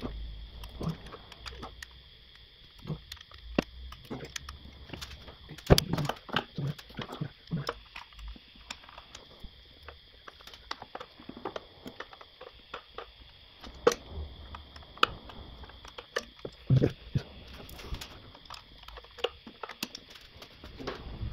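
Irregular clicks and knocks of a hand tool and fingers on metal bolts and brackets under a car, as bolts are worked loose, with the loudest knocks about six seconds in and again near the end.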